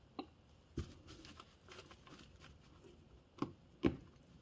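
Small metal parts of a bicycle motor's gear train being handled and fitted: a few sharp, light clicks and knocks as a gear is pushed onto its shaft and held by a circlip, with faint rustling between. The two loudest clicks come near the end.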